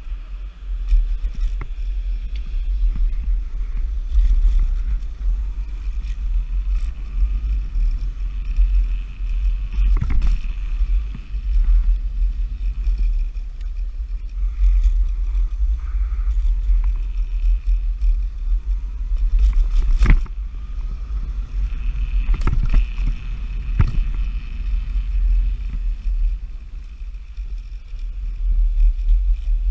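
Nanrobot Lightning dual-motor electric scooter ridden at speed: a steady low rumble of wind and solid tyres on pavement, with a faint high whine. There are several sharp knocks, about ten and twenty seconds in and twice more near the twenty-three-second mark, as the scooter goes over bumps.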